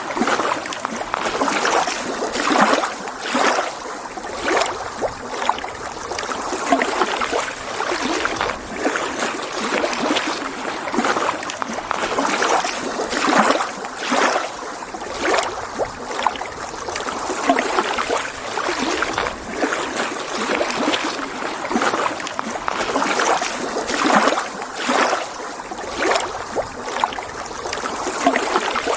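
Small lake waves lapping against the shore: a steady wash of water with little splashes every second or two.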